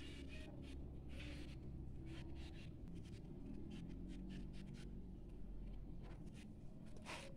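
Pastel crayon scratching on notebook paper in short strokes, a cluster at the start and about a second in, and one more near the end.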